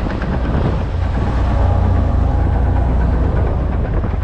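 Boat engine running with a steady low hum, with water rushing and splashing along the hull.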